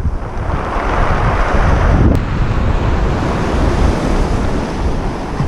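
Wind buffeting the microphone over the sound of surf breaking and washing up a pebble beach, with one wave's wash swelling during the first two seconds. A brief click comes just after two seconds in.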